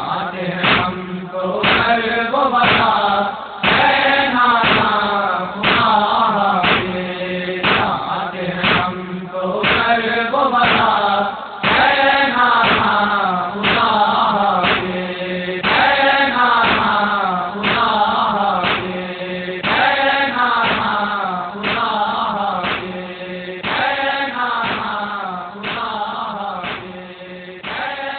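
Male voices chanting a noha, a Shia lament, in chorus over a steady hum, with sharp beats about once a second from matam, hands striking the chest in time. It grows quieter toward the end.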